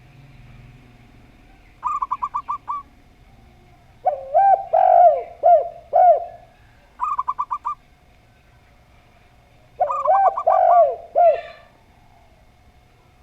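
Zebra dove and spotted dove calling in turn. Twice there is a quick run of five or six short, higher coos, and twice a lower phrase of four or five rounded coos lasting about two seconds.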